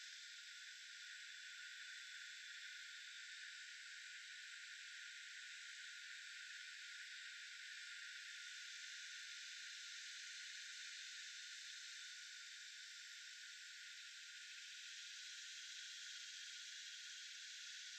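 Faint, steady high-pitched hiss with no distinct calls, clicks or other events.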